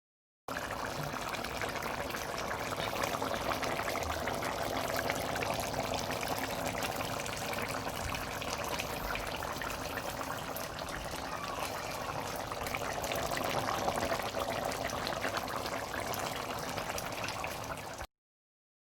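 Pot of curry mutton simmering, a steady bubbling with many small pops; it cuts off suddenly near the end.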